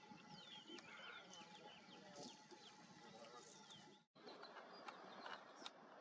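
Faint birdsong from several small birds: quick, high, downward-sliding chirps overlapping one another. About four seconds in the sound cuts out for an instant, and a hissier outdoor background with scattered short ticks follows.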